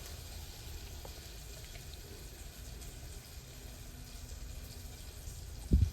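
Faint sloshing of buttermilk as freshly churned butter is gathered by hand, with one low thump near the end.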